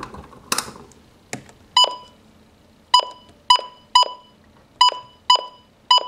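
Key-press beeps from a Midland weather alert radio as its alarm clock is set: about seven short, high beeps at uneven intervals, each with a faint click of the button.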